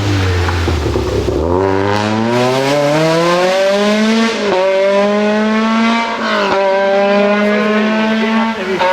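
VW Golf Mk1 rally car's engine comes off the throttle, revs sinking until about a second and a half in. It then accelerates hard, the revs climbing through the gears, with quick upshifts about four and a half and six and a half seconds in and again near the end.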